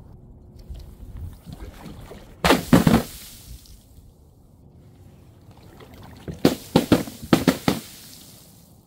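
Water-filled balloons dropped and bursting, with splashes: one splash about two and a half seconds in, then a quick run of five or six splashes a little past the six-second mark.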